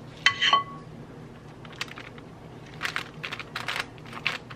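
A metal ice cream scoop gives a short ringing clink, then a quick run of crinkling, scraping strokes as fritter dough is pushed down onto wax paper in an air fryer basket.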